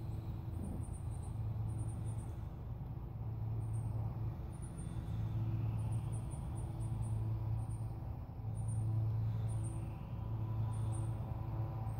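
Outdoor background: a steady low hum that swells and fades, with short high chirps repeating in quick little groups throughout.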